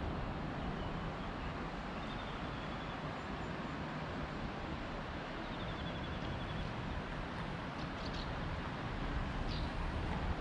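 Steady outdoor background noise with a few faint, high bird chirps and trills.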